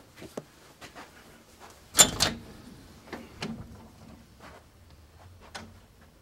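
Scattered clicks and knocks of a door being handled, with a sharp double knock about two seconds in and lighter taps after it.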